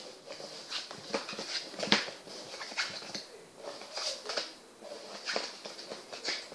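Playing cards being gathered, slid and picked up by hand on a tabletop: a string of soft, irregular clicks and rustles.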